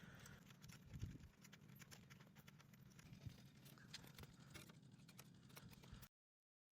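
Near silence with faint scattered clicks and a few light knocks of small metal hardware, such as exhaust mounting bolts, being handled. It cuts to dead silence about six seconds in.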